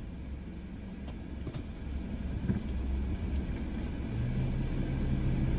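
A car's low, steady rumble heard from inside the cabin, with a few faint clicks. About four seconds in, a steady low drone sets in.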